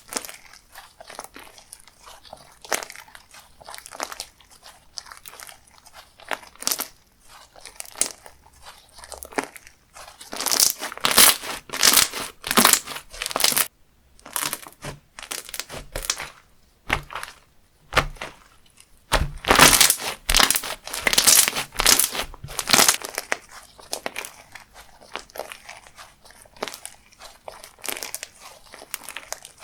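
Textured slime being squeezed and worked by hand, giving dense crackling and crunching, louder in two spells about a third and two thirds of the way through.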